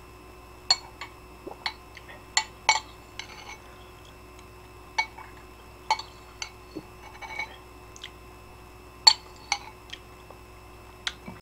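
Metal spoon clinking against a ceramic bowl of ramen: about a dozen short, irregular clinks as it scoops broth and noodles.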